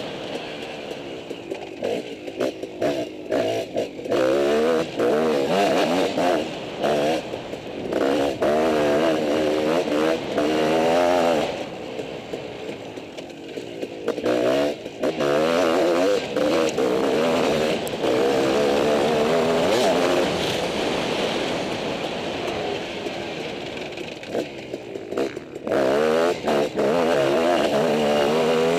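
Motocross dirt bike engine heard from the rider's helmet. It revs up and falls back again and again as the rider accelerates, shifts and rolls off the throttle, with short drops in level when the throttle is closed for corners.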